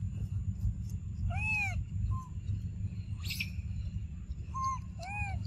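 Macaque coo calls: two short, arching, high-pitched calls, one about a second and a half in and one near the end, with brief squeaks between them. A steady low rumble runs underneath.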